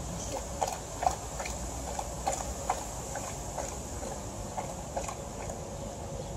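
Golden retriever lapping water from a plastic bucket: quick, irregular wet laps, about two or three a second.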